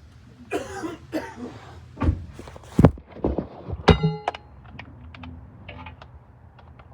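Metal tools or parts being handled: a brief scrape, then several knocks and thuds, with one ringing metallic clank about four seconds in and a few light clicks after it.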